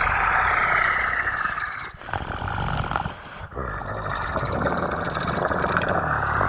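Monster growl sound effect: long, rough roaring growls, broken by short pauses about two and three and a half seconds in.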